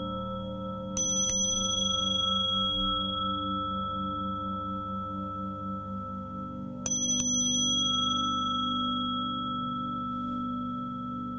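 Tibetan singing bowls ringing in a low, pulsing drone, with a bright bell struck twice in quick succession about a second in and again about seven seconds in, each strike ringing on.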